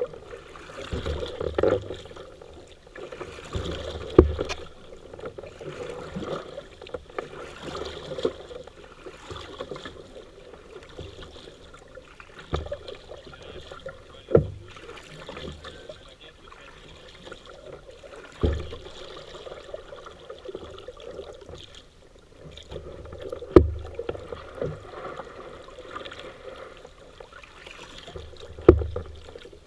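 Paddle strokes swishing through river water from a small paddled boat, with a sharp knock every few seconds.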